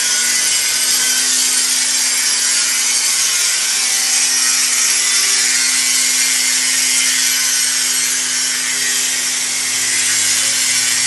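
A power tool running steadily, a sawing sound with an even hiss and a constant low hum underneath.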